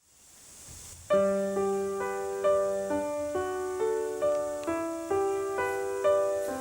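Intro background music: a gentle keyboard melody of struck notes, about two a second, entering about a second in after a faint hiss fades up.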